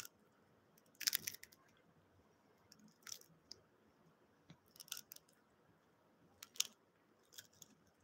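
A small child crunching on a snack close to the phone's microphone: a handful of short crackly crunches, a second or two apart.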